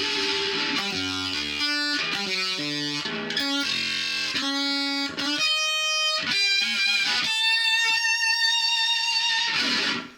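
Electric guitar played through a Behringer octave divider pedal: single-note phrases with a lower tone under many of the notes, then a long held high note that cuts off just before the end.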